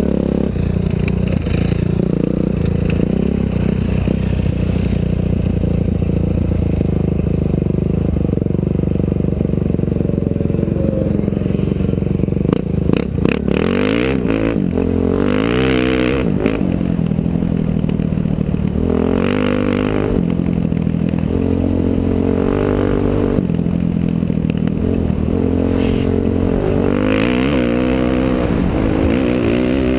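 Off-road race vehicle's engine heard from on board, running hard under load. In the second half its pitch repeatedly climbs and drops as it revs up and shifts. A short burst of knocks and rattles comes a little before the middle.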